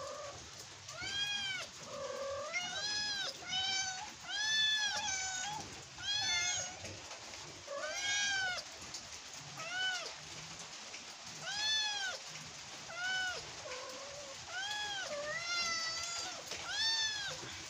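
A cat meowing over and over, about once a second, each call rising and then falling in pitch.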